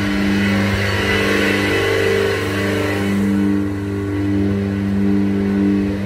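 Milking plant machinery running during the plant wash: a steady low hum with a higher overtone that swells and fades about once a second, under a hissing rush that eases off about halfway through.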